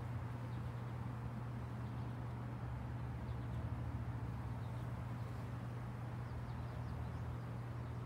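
Steady low hum with a few faint bird chirps about halfway through.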